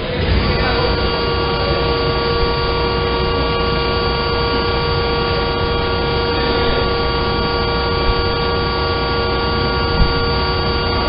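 A 350-ton servo injection moulding machine running: its servo-driven hydraulic pump gives a steady whine of several tones over a low hum, rising in level just after the start and then holding. A single short knock comes near the end.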